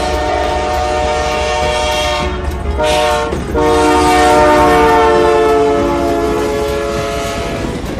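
Train horn sounding a long held chord of several notes over a steady low rumble. About three and a half seconds in it changes to a louder chord, whose pitch sags slightly before it eases off near the end.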